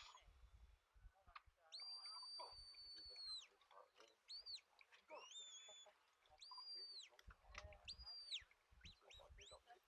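Shepherd's whistle commands from the sheepdog handler, faint and distant: about six sharp, high whistled notes, some held flat for a second or more, some short, one sliding up before levelling off, directing the working dog around the sheep. Low thumps of wind on the microphone run underneath.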